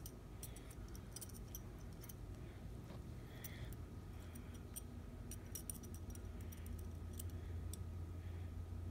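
Faint, scattered light clicks and ticks of a metal dissecting probe working among steel dissection pins, over a low steady hum.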